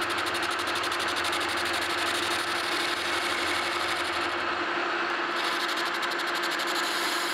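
Metal lathe running, its cutting tool taking a light re-facing cut across the worn, tapered seat of a steam locomotive throttle valve: a steady hum under a hiss with a fast, even pulsing. The cut is interrupted and still skipping where the valve face is worn low, and the hiss drops out briefly about halfway through.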